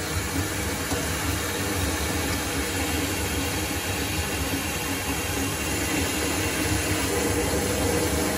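Delta Roman tub faucet running on the cold side, water rushing steadily with a low rumble, run as a leak test after a cartridge replacement.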